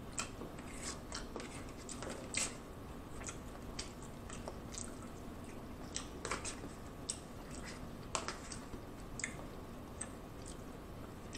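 Close-miked chewing of baked mostaccioli pasta: soft wet mouth sounds and smacks, with scattered short clicks as a fork digs into the plastic takeout tray.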